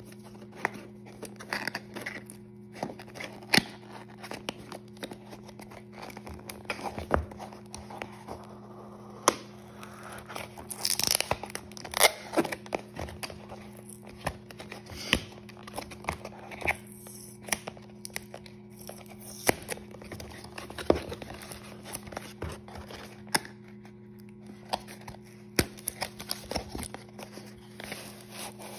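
Hands opening a small cardboard Disney Doorables Puffables box: nails tapping and clicking on the cardboard, with tearing and crinkling as the seal and flaps are pulled open, including a longer stretch of tearing about eleven seconds in. A steady low hum runs underneath.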